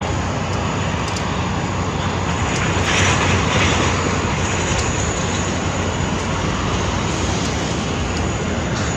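Boeing 787-8 jet engines at takeoff power: a loud, steady roar with a faint high whine over it, swelling slightly about three seconds in.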